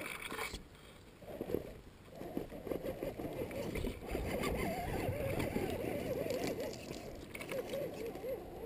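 RC rock crawler's electric motor and gearbox whining, the pitch wavering up and down quickly as the throttle is worked on the climb. A few knocks of tyres and chassis on rock come in the first couple of seconds.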